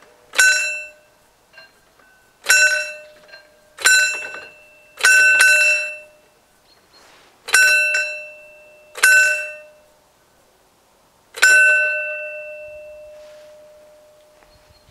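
Level-crossing warning bell ringing in single, unevenly spaced strikes, about eight in all, while the crossing barriers come down. The last strike rings on and fades over about three seconds.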